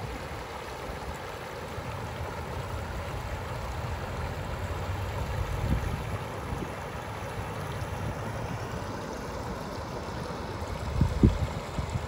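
Shallow river babbling over a rocky riffle, a steady rush of running water. A low thump sounds near the end.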